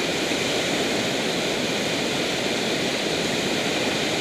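Whitewater of a mountain river rushing steadily through a rapid.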